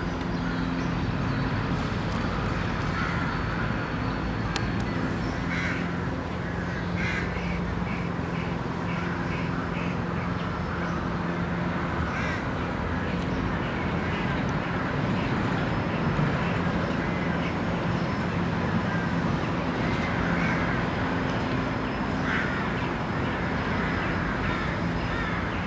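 Park ambience: birds calling, with several crow-like caws standing out, over a steady low hum of traffic.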